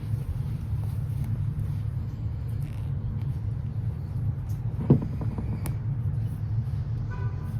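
Steady low rumble, with a single short knock a little before five seconds in.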